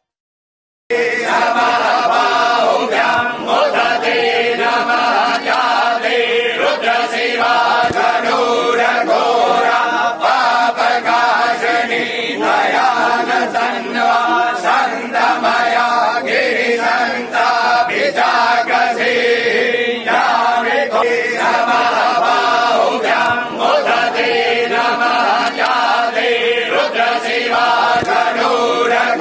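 A group of voices chanting mantras in unison, dense and steady, starting about a second in after a moment of silence.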